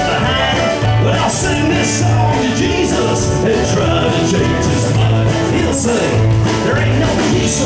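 Live country band playing an instrumental break: upright bass notes on a steady beat, acoustic guitar and drums with cymbals.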